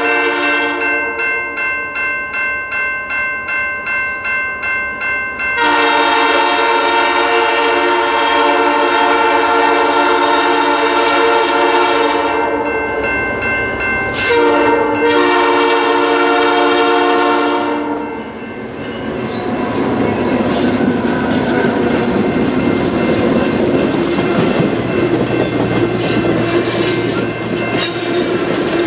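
Air horn of a Canadian Pacific FP9A diesel locomotive sounding the grade-crossing pattern of long, long, short, long blasts as the train approaches. Then the locomotives and passenger cars pass, with a steady engine drone and wheels clicking over the rail joints.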